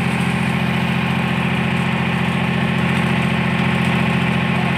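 An engine idling steadily at a constant speed, with an even low hum.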